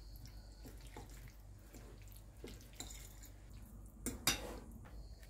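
Fork stirring purslane leaves through thick yogurt in a bowl: faint wet squelching and light clicks, with a brief louder knock of the fork against the bowl about four seconds in.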